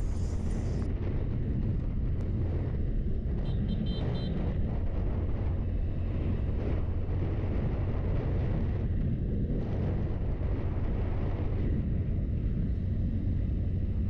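A 100 cc motorcycle running steadily at cruising speed on the open road, with wind rushing over the microphone.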